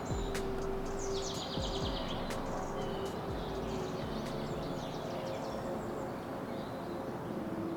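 Outdoor ambience with small birds chirping, including a quick trill a little over a second in, over a steady low background rumble.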